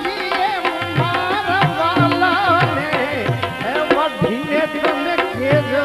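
Instrumental passage of a Gujarati bhajan: tabla keeps a steady rhythm under held accompanying tones and a wavering melodic line.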